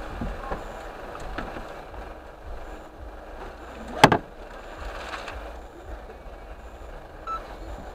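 Low, steady hum of street traffic heard from inside a stopped car, with one sharp knock about four seconds in.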